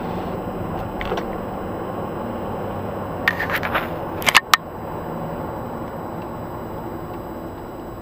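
Car driving, heard from inside the cabin: steady engine and road noise. A few light clicks come about a second in, and a cluster of sharp clicks and knocks comes around three to four and a half seconds.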